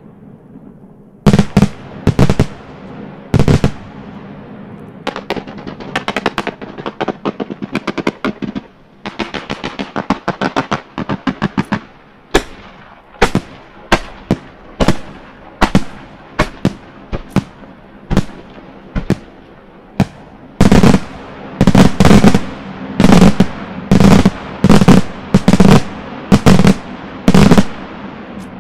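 Fireworks display: a string of sharp bangs from bursting shells, with rapid crackling runs between about 5 and 12 seconds in. From about 20 seconds in come heavier, louder reports, roughly one every half second to second.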